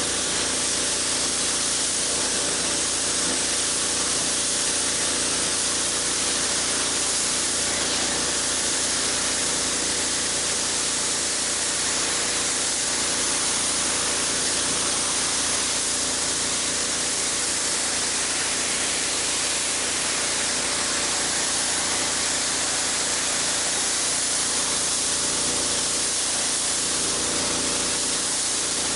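Pressure washer spraying water onto a concrete patio through a water broom and wand: a steady hiss of water jets hitting the slab over the even drone of the pressure washer's motor.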